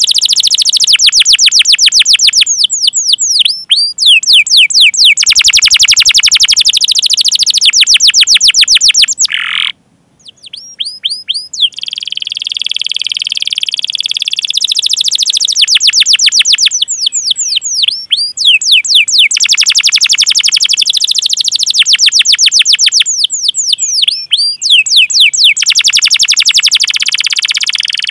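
Domestic canary singing long rolling trills: runs of rapid, evenly repeated high notes lasting a few seconds each, with a brief break about ten seconds in.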